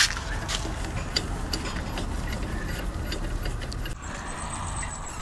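Metal clicks and clinks from a socket wrench on the wheel nuts of a heavy truck, over a steady low rumble.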